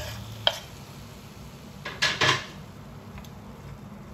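Sliced sausages scraped off a wooden cutting board into a frying pan with a wooden spatula: a sharp knock about half a second in, then a louder double clatter of scraping and dropping about two seconds in, over a low steady hum.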